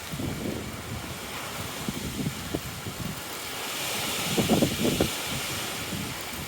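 Thunderstorm wind gusting and buffeting the microphone with an uneven low rumble, and a rushing gust swelling up and dying away about four to five seconds in.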